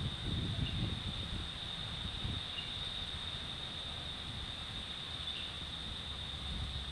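A steady, high-pitched drone of insects fills the background. Low wind buffeting on the microphone runs through the first couple of seconds, then settles into a faint low rumble.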